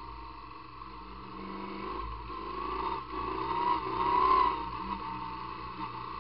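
Sidecar motorcycle's engine running under way, its note rising and then falling about two thirds of the way through, where it is loudest.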